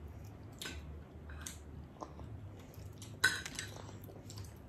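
Steamed crab being eaten by hand: small cracks and clicks of crab shell being picked apart, with light clinks of shell and cutlery against plates and bowls. A sharper click stands out about three seconds in.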